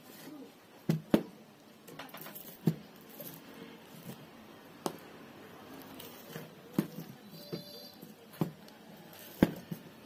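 Hand tools clicking and snapping against a ceiling fan's laminated steel stator as its copper winding is cut and pulled out of the slots. About eight sharp, irregular clicks, with quieter scraping and rustling of wire between them.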